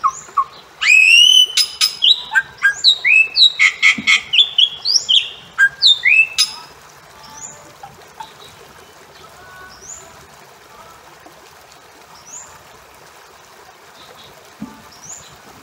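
Bali myna calling: a rapid run of loud, rising whistled notes mixed with sharp clicks for about five seconds, then only faint, short rising high notes every second or two over a steady hiss.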